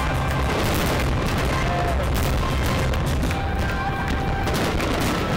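Fireworks going off in quick succession: many close-spaced bangs and crackles over a continuous low rumble of bursting shells.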